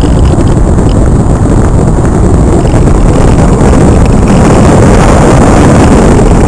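Steady, loud rush of airflow buffeting the microphone of an onboard camera on a Multiplex Cularis RC model glider in flight.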